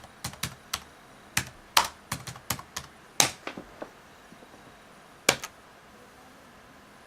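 Laptop keyboard typing on a ThinkPad T61: a quick run of keystrokes for about four seconds, a pause, then two more keystrokes.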